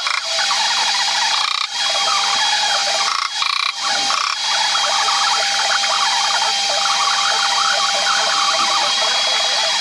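Compressed-air spray gun hissing steadily as finish is sprayed onto an oak panel, with short breaks about two seconds in and again around the three-to-four-second mark, over a faint steady whine.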